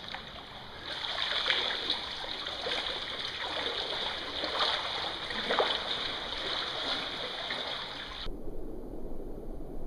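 Creek water splashing and swishing as people wade through deep water, over a steady rush of flowing water. Near the end the sound changes abruptly to a dull low rumble and hiss.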